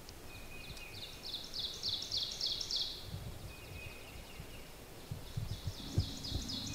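A songbird singing two quick runs of high repeated notes, each note sweeping down, the first about half a second in and the second about five and a half seconds in. A thin higher whistle sounds briefly between them, and soft low thumps come in the second half.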